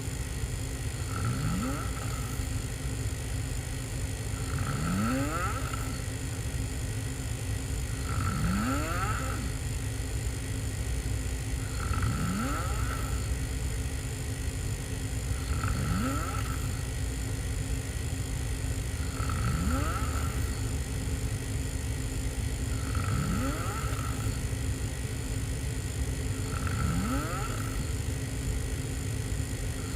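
A person snoring hard while sleeping on their back with the mouth open, one snore about every three and a half to four seconds, each rising in pitch. The snores sit over a steady low hum.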